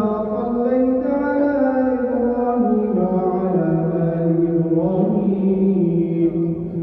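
Melodic chanting of a du'a during Taraweeh prayer: one long, drawn-out vocal phrase that steps down in pitch about two and a half seconds in, lifts briefly around five seconds, and breaks off near the end.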